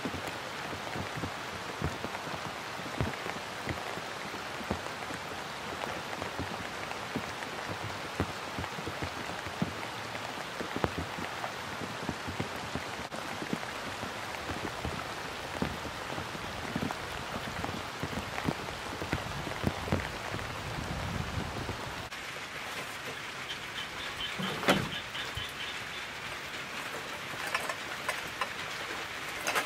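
Steady rain falling on open water and grass, with many small drop sounds. About three-quarters of the way through the sound changes, and there is a single sharp knock.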